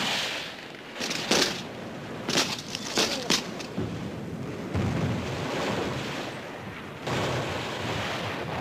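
War-film battle sound effects: a few scattered gunshot cracks in the first half, then a low boom about five seconds in, over steady battle noise.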